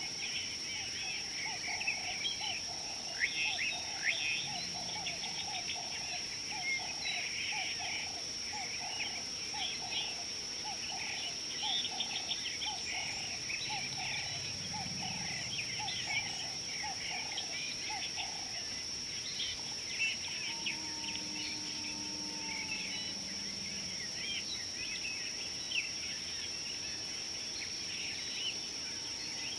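Bush ambience: many birds chirping and calling over a steady high-pitched insect drone. A lower call repeats evenly, about two times a second, and stops about two-thirds of the way through. A few longer whistled notes follow.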